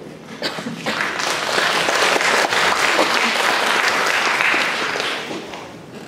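Audience applauding: many hands clapping, starting about half a second in, holding steady, then dying away near the end.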